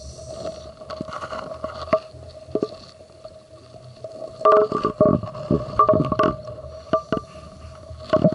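Underwater sound of a scuba dive: a steady hum throughout, with bursts of bubbling and crackling from about halfway in, typical of a diver exhaling through a regulator.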